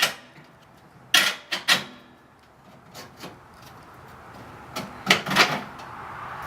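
A few sharp knocks and clatters in two clusters, about a second in and again about five seconds in, as of hard objects being handled.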